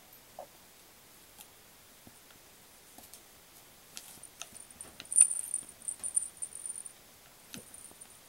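Kitten playing with a cat teaser toy: scattered light taps and clicks as it paws and pounces, with a bright, high jingling rattle of the toy about five to seven seconds in and a soft thump near the end.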